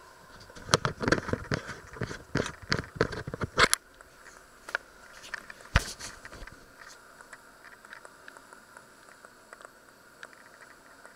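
Handling noise as the camera is picked up and moved: a quick run of sharp knocks and scrapes over about three seconds, then one louder single knock, then a few faint clicks.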